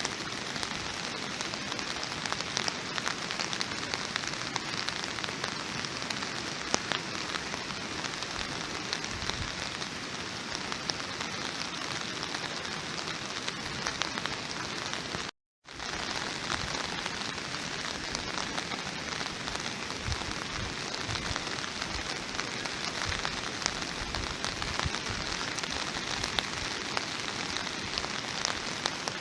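Steady rain falling on a surface, a dense even hiss with many individual drop ticks. It cuts out to silence for a split second about halfway through, then carries on as before.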